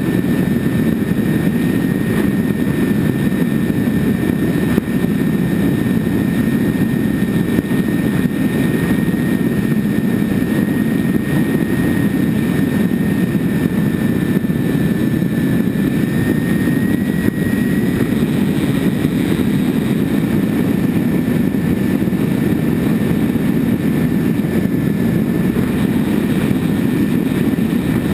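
The twin engines and propellers of a radio-controlled Grand Cruiser plane in steady cruising flight, heard from an onboard camera as a continuous low drone mixed with rushing air. A thin steady whine rides on top and rises slightly about halfway through before settling back.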